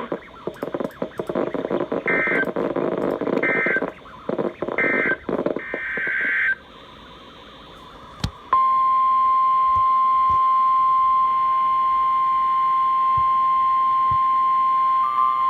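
Emergency Alert System SAME data bursts: four short, buzzy digital screeches over crackly radio noise. After a brief pause and a click, the long, steady, single-pitched NOAA Weather Radio 1050 Hz warning alarm tone starts about eight and a half seconds in. That tone signals that a new warning is about to be read.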